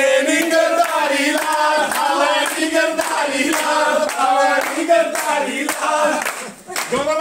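A group of people singing and chanting together in a loud festive chorus, with hand claps in time.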